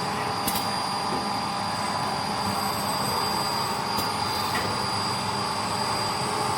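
Steady machine noise from a robotic ultrasonic welding cell, with a constant high-pitched whine and two sharp clicks, about half a second and four seconds in.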